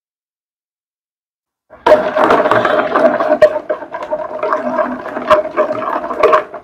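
A wire whisk beating wet cake batter in a mixing bowl: a busy run of splashy scraping with sharp clicks of the wires against the bowl. It starts suddenly about two seconds in, after dead silence.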